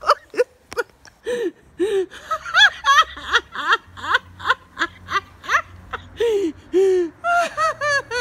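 A woman's excited laughter: a quick, unbroken string of short, high-pitched giggles, about three a second.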